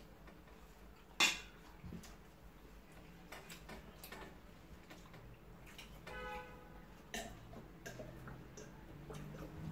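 Quiet eating sounds at a table: a metal spoon clicking against a plate, with scattered small clicks and chewing. The sharpest click comes about a second in, and there is a short vocal sound about six seconds in.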